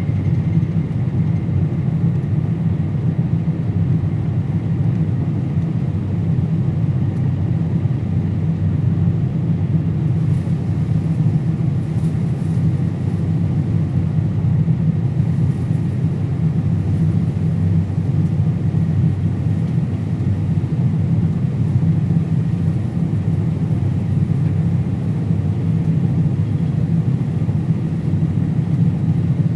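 Combine harvester running at full throttle with its rotor and separator engaged while cutting soybeans: a steady low drone with no change in pitch.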